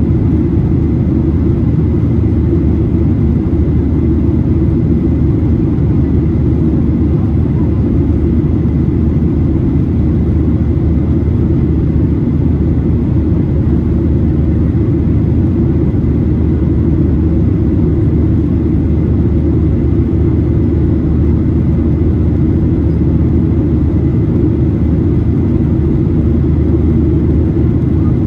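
Steady cabin roar of a Boeing 737-800 in flight: its CFM56-7B turbofan engines and the airflow over the fuselage, heard inside the cabin, with a faint steady high whine over the low rumble.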